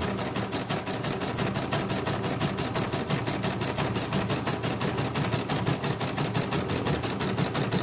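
CNY E900 computerised embroidery machine stitching at speed during a test run after repair, with its covers off: a fast, even clatter of needle strokes that stops near the end. The repairer finds the sound a bit off, as though the mechanism wants oil.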